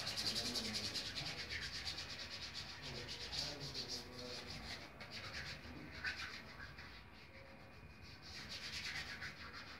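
Hands rubbed briskly together, palm against palm, a rapid run of dry swishing strokes that starts abruptly, eases off in the middle and picks up again near the end.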